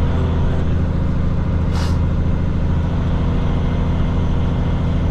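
Peterbilt 579 semi truck's diesel engine running steadily at low speed, heard from inside the cab, with a short hiss of air about two seconds in.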